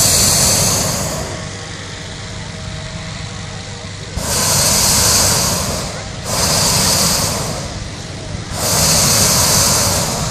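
Hot-air balloon propane burners firing in loud blasts of hiss, each lasting one to two seconds, about four times, over a steady low rumble.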